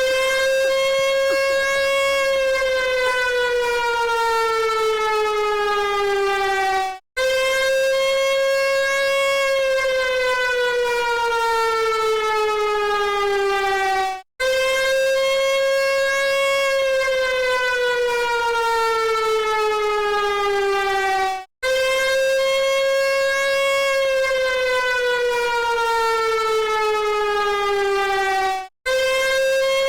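Alarm sounding a siren-like tone: a loud note held for about two seconds, then sliding slowly down in pitch before cutting off and starting again, repeating about every seven seconds.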